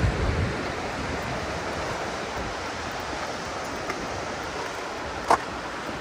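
Surf washing on a rocky shore, a steady rush of waves, with low wind buffeting on the microphone at the start and one short sharp sound near the end.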